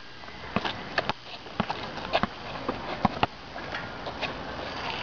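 Basketballs bouncing on a concrete outdoor court: scattered sharp thumps, about eight of them at uneven intervals, with no steady dribbling rhythm.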